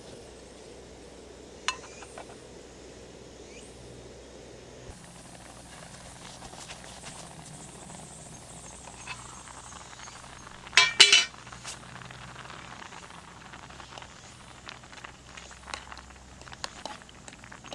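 Cooking-prep clinks of metal utensils and containers: one sharp clink early on, a loud rattling clatter about eleven seconds in, then many small ticks and knocks.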